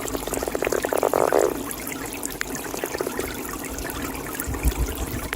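Toad calling in a pond: a rapid pulsed trill lasting about a second and a half, then a shorter trill about three seconds in, over steady trickling water.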